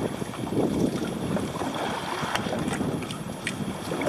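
Wind and water noise aboard a boat at sea: an uneven rushing haze, with a few faint sharp clicks.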